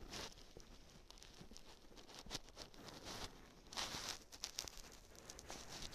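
Faint rustling with scattered small clicks and taps from things being handled close to the microphone. A louder rustle comes about four seconds in.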